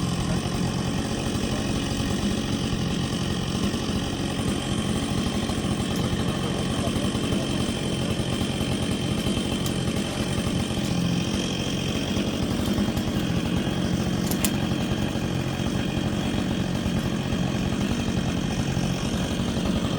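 An engine idling steadily, with no revving.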